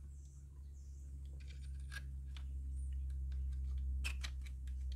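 Small scattered clicks and taps of a metal tool and rifle parts being handled while the air rifle's action is lined up in its stock, the clearest cluster about four seconds in, over a steady low hum.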